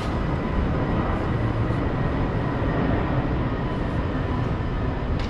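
Busy city street ambience: a steady low rumble of traffic noise.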